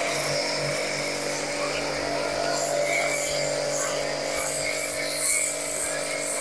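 Aimex DT-6502 electric pressure washer running with a steady hum while its foam cannon sprays a hissing jet of foam.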